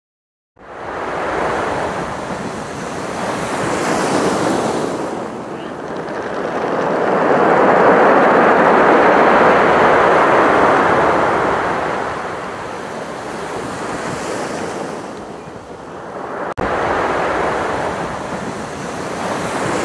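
Ocean surf: waves breaking and washing in, swelling to a loud peak near the middle and easing off. The sound breaks off for an instant about three-quarters of the way through, then resumes.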